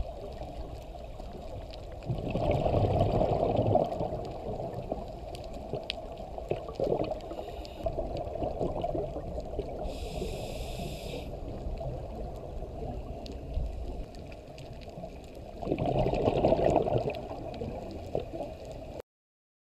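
Underwater ambience heard through a camera housing: a steady muffled rumble, with the bubbling of a scuba diver's exhaled breath about two seconds in and again near the end, and a short hiss of inhaling from the regulator around the middle.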